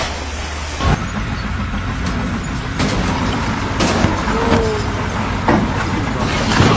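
Truck-mounted crane's engine running, with a few sharp metallic knocks as the crane swings a heavy steel load and starts to tip over.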